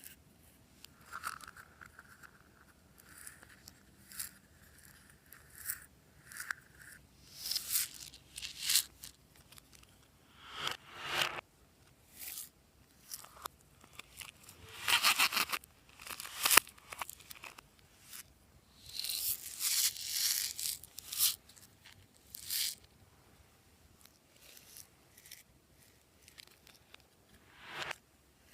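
Glossy slime being worked by hand, giving irregular sticky crackling and tearing noises in short bursts with quiet gaps between them.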